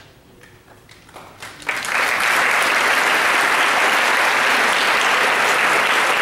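Concert audience applauding: a few scattered claps at first, then full, steady applause from just under two seconds in.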